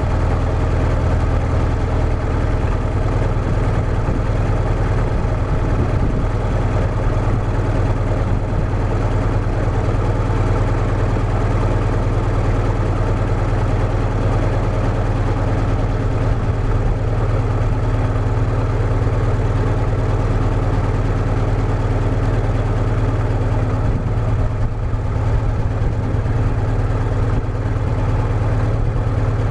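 Caterpillar D315 four-cylinder diesel engine running steadily at a fast idle, with no load: the welder generators are disconnected, and it will not idle down any lower.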